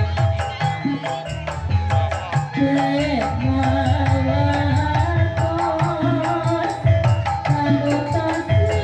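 Dolalak folk music: hand drums beating a fast, steady rhythm under a sustained melody line that slides down in pitch about three seconds in.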